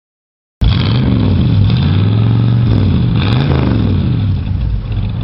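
Chevy K5 Blazer's engine revved twice, its pitch climbing and dropping each time, then settling to a steady idle. The sound cuts in abruptly about half a second in.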